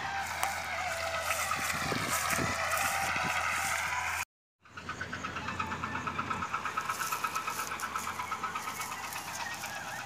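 A motor engine running, its pitch wavering, with a fast, even pulse in the later part. The sound cuts out for a moment about four seconds in.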